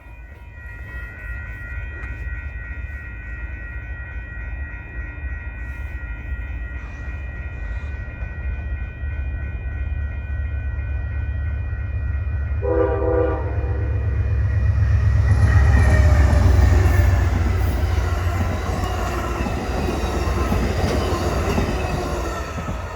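Amtrak train horn sounding one long multi-note chord that echoes, held for about the first half. The train then passes with a rising rumble and wheel noise, loudest about two-thirds of the way through, then fading a little.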